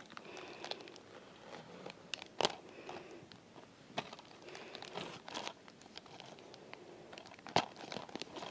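A paper mailing envelope torn open and crinkled by hand: soft rustling with scattered sharp crackles, the loudest about two and a half and seven and a half seconds in.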